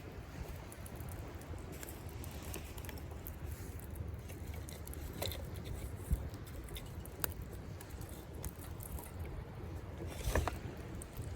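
Wood campfire crackling, with scattered sharp pops and a small cluster of them about ten seconds in, over a low steady rumble of sea waves on the shore.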